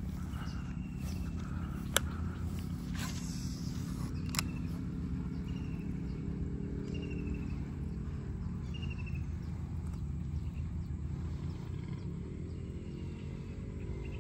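Outdoor ambience: a steady low rumble with a small animal giving short, repeated chirps about once every second or two. Two sharp clicks come about two seconds in and again a couple of seconds later.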